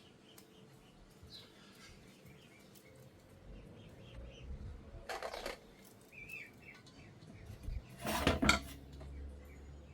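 Small birds chirping, broken twice by short noisy bursts about five and eight seconds in, the second one louder.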